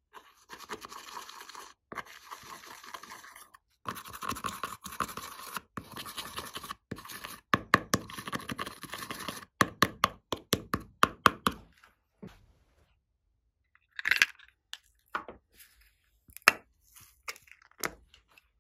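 Pressed eyeshadow being scraped out of a palette pan with a plastic pen tip: quick, dense scratching strokes for most of the time. In the last several seconds the scraping stops and there are a few separate sharp clicks and taps.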